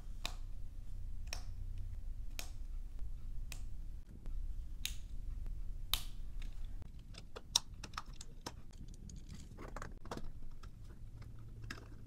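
LEGO plastic pieces being handled and snapped together: a run of sharp clicks about once a second, then a quicker cluster of clicks with the loudest one about seven and a half seconds in, and a softer rattle of parts near the end.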